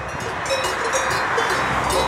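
Cowbells on grazing Brown Swiss cattle clanking irregularly as the cows move their heads. Under them runs a steady rushing noise that grows louder toward the end.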